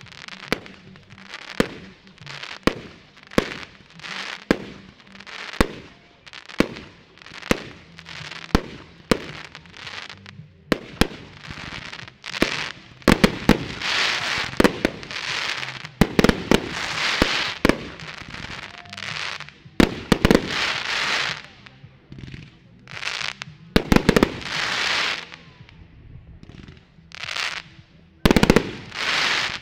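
Aerial fireworks bursting: sharp bangs about once a second, each followed by a short crackle. From about halfway, longer bursts of dense crackling from glittering gold shells, still mixed with bangs.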